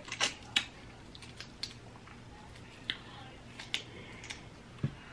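Close-miked eating of boiled seafood: scattered sharp mouth clicks and smacks as shellfish meat is bitten off and chewed, with two low thumps near the end.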